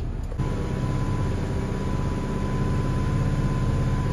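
Truck's diesel engine running steadily, heard from inside the cab while driving, louder from about half a second in, with a thin steady high tone alongside.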